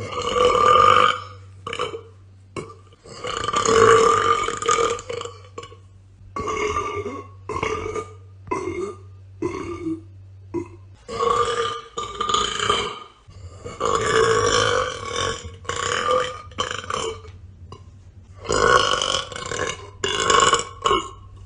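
A woman's burps, one long, loud, drawn-out burp after another, each lasting a second or two and separated by short pauses.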